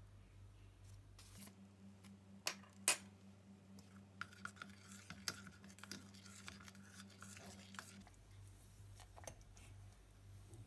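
Metal spoon tapping against a pigment jar and a steel pot: two sharp clinks a few seconds in, then a run of lighter clicks and scraping while stirring a thick chalk-and-glue ground mixture.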